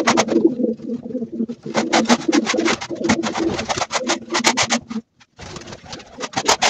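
Domestic pigeons cooing steadily in a loft, mixed with frequent short, sharp rustles and knocks. Everything cuts out briefly about five seconds in.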